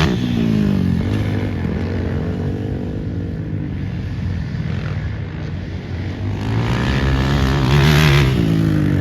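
Racing quad engines revving past on the track: one passes at the start and another grows louder to a peak about eight seconds in, the pitch dropping as each goes by.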